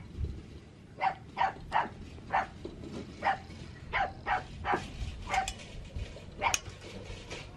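A dog giving a string of short, high yelps, about ten of them at roughly two a second.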